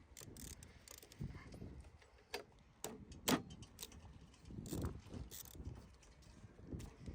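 Hand tools clicking and clinking against the mower engine while the spark plug is disconnected and unscrewed: scattered short metallic clicks and knocks, the sharpest a little over three seconds in.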